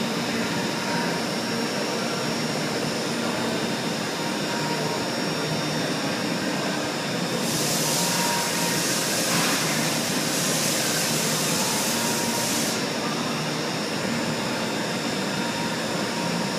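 CNC machine cutting ports: steady spindle and machine noise with a faint steady whine. A loud hiss joins about halfway through, lasts around five seconds, then stops suddenly.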